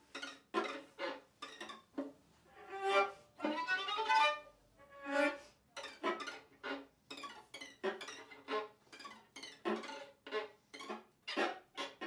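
Violin and viola duo playing a string of short, separated bowed notes with brief gaps between them, with one longer held note about three seconds in.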